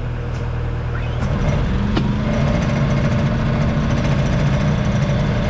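Harbor Freight Predator portable generator catching about two seconds in and then running steadily, over the steady idle of another engine.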